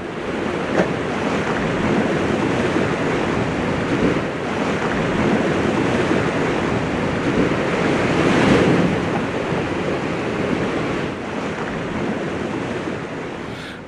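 Sea waves washing ashore, with a swell rising and falling about eight seconds in and some wind.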